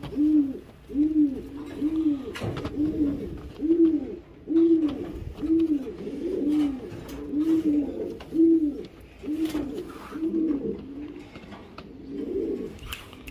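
Gaditano pouter pigeon cooing to its mate in a steady run of more than a dozen low coos, each note rising and falling, about one every three-quarters of a second.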